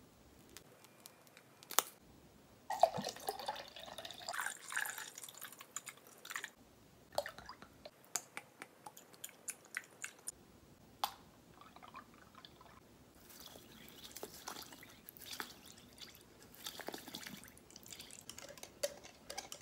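Hot sauces squeezed and poured from bottles and a tube into a glass measuring jug: wet squelching and sputtering as the sauce comes out, with drips and sharp clicks of caps and bottles.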